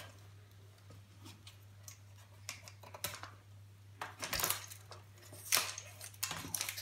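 Scattered light clicks, taps and scrapes of a flat-panel TV monitor's screws and small parts being handled as it is taken apart, over a steady low hum.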